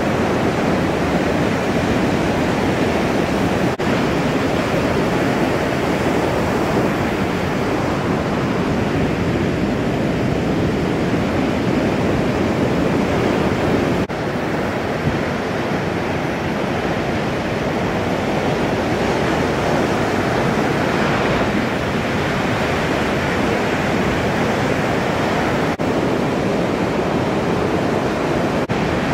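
Ocean surf breaking on a reef: a steady rush of whitewater with no let-up. There are a few brief dips, and the level drops slightly about halfway through where one shot cuts to the next.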